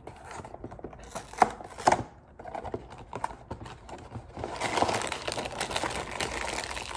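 Cardboard cereal box being torn open, with two sharp rips about one and a half and two seconds in. From about four and a half seconds in, the inner plastic bag liner crinkles steadily as it is pulled open.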